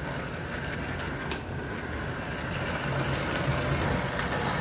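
HO-scale Athearn blue box SD40T-2 model locomotive running along the track: the steady whir of its old flywheel-equipped motor and gears, running a little jerkily after years unused.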